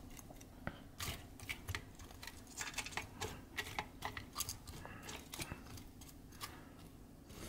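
Light, irregular clicks and taps of a metal fork turning chicken wings in an air fryer basket, the tines knocking against the basket's grate.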